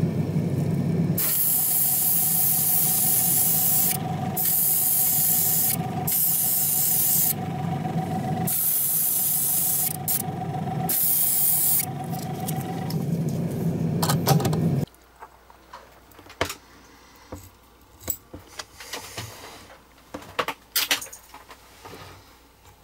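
Airbrush spraying clear car lacquer in five bursts of hiss, each one to three seconds long, over a steady motor hum that stops suddenly about 15 seconds in. After that, quiet with small scattered clicks of small metal parts being handled.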